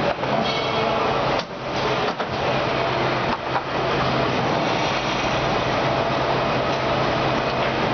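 Steady factory-floor machinery noise with a low hum from the assembly workstation and the plant around it. A few short knocks come in the first few seconds as the operator works parts into the fixture.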